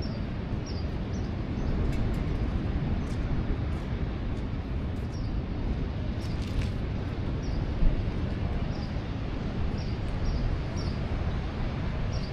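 Outdoor ambience: a steady low rumble of noise, with short high chirps recurring every second or so.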